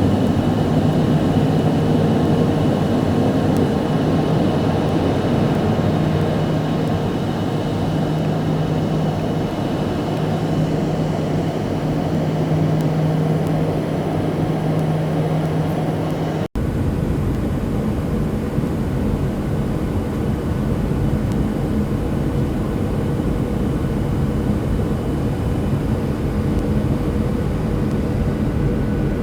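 Airliner cabin noise from a seat beside the engine: a steady engine drone with a few steady tones over it. About halfway through it changes abruptly to a lower, rougher rumble.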